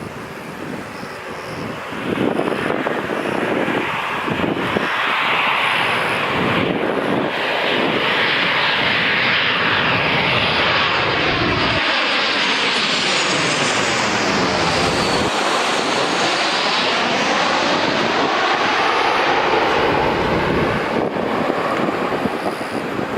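A Boeing 737-800's CFM56-7B turbofan engines are heard as the airliner passes on its landing approach. The engine noise builds about two seconds in and stays loud, with a high fan whine that falls in pitch as the plane goes by. It eases near the end.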